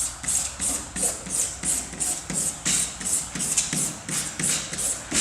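Rhythmic back-and-forth rubbing on a tractor's painted panel, about three strokes a second, each with a soft rasp: hand work removing gel coat overspray from the paint.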